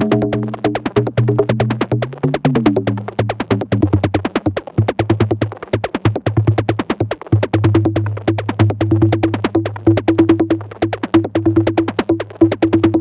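Glitchy modular-synth electronic music run through a Befaco Iroi effects module: a fast, even stream of clicks over a low drone. A pitch slides downward about two seconds in, and from about five seconds on a stuttering, chopped tone joins.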